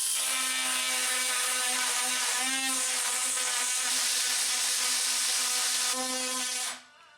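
Electric power tool motor running at high speed while cutting wood, its whine dipping briefly in pitch twice as it takes load, then cutting off sharply near the end.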